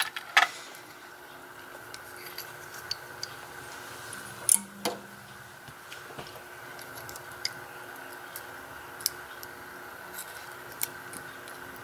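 Scattered small metallic clicks and taps of pin-tumbler lock pins and parts being handled and taken out of a disassembled lock, over a faint steady hum.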